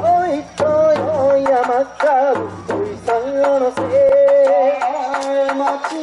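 Bon odori ondo singing into a microphone, long held notes with a wavering pitch, over a large taiko drum struck with sticks in a steady rhythm.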